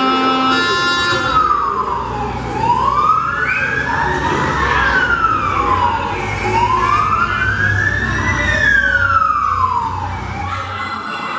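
Fire engine siren wailing: a slow rise and fall in pitch, about two full cycles, over a low engine rumble, stopping near the end.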